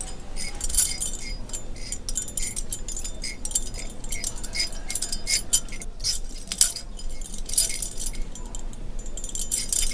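Continuous irregular metallic jangling and clinking, many small sharp strikes with brief ringing, over a faint low hum.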